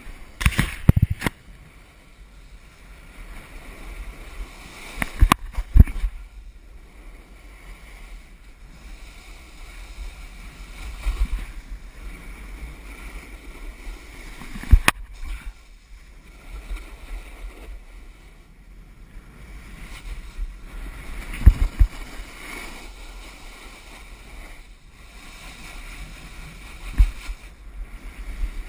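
Snowboard sliding and carving down soft spring snow, the edge rasping with rushing wind over a GoPro's microphone. Louder scrapes and knocks come about every five seconds as the board turns.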